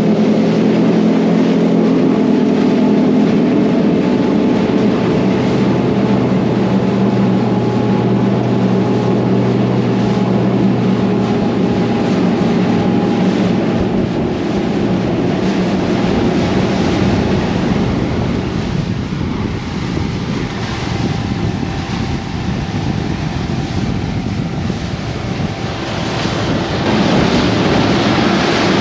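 Outboard engine of a Mercury 350-powered boat running under way, with water rushing along the hull and wind on the microphone. The engine's steady tone fades within the first several seconds, leaving wind and water noise that swells again near the end.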